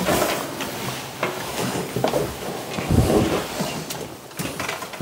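A run of irregular knocks, scrapes and rustles of wooden things and clutter being moved about, loudest about three seconds in.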